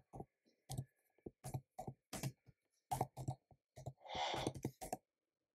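Computer keyboard typing: uneven, separate key clicks, a few a second. A short rushing noise comes a little after four seconds in, then the typing stops.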